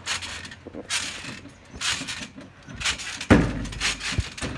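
Trampoline springs and mat jangling and creaking with each bounce, about once a second, with a heavier thump about three seconds in.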